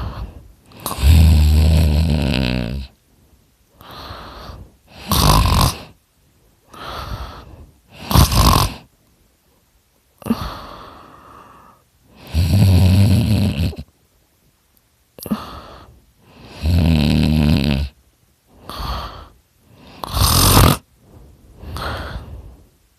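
A man snoring loudly with his mouth open: three long rattling snores with a low flutter, and shorter, hissier breaths between them.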